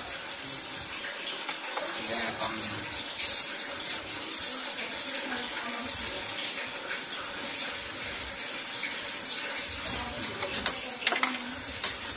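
Steady rushing hiss like running water, with several sharp clicks near the end.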